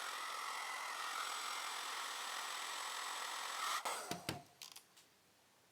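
A steady hiss lasting about four seconds that cuts off abruptly, followed by a few sharp clicks.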